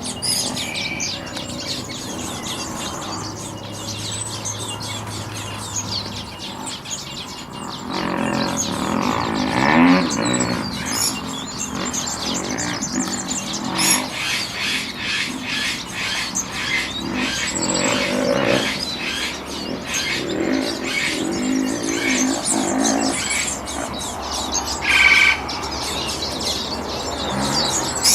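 Many birds chirping and calling together: a dense chatter of quick, high chirps, with a few louder, lower calls standing out.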